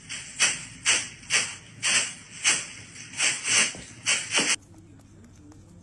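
A cat pressing its front paws in turn into a crumpled sheet of paper: rhythmic crinkling, about two crackles a second, that stops suddenly about four and a half seconds in.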